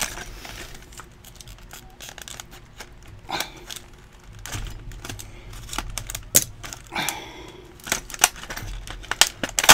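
Hard clear-plastic blister package being cut and pried open with a knife and bent by hand: irregular crinkling and crackling of the plastic, broken by sharp clicks and snaps.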